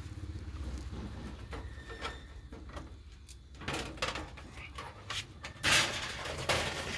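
Covers and parts of an office copier being handled during disassembly: scattered clicks and knocks, with a louder scraping rattle about two-thirds of the way through, over a low hum that fades out about halfway.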